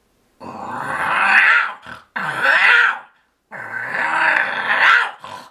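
A man imitating a wildcat with his voice: three long, rough calls with short breaks between them.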